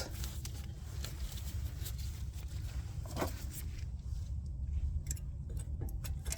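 Light scraping and a few faint clicks of a brake pad being handled and seated in a front brake caliper bracket, over a steady low background rumble.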